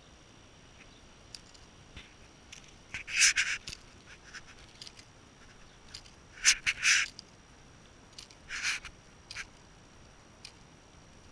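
Puppy giving a few short raspy yaps a few seconds apart, the middle one doubled, with light clicks and scuffs between.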